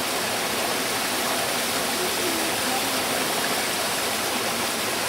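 Mountain stream water rushing in a steady, unbroken flow.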